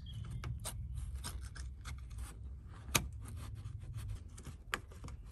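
Fingers working a plastic drain valve under a BMW 4 Series convertible that is clogged with gunk: a run of small, irregular clicks and scraping. There is a sharper click about three seconds in and another near the end, over a low steady rumble.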